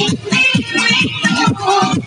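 Loud dance-song music with a steady beat, played over a stage sound system.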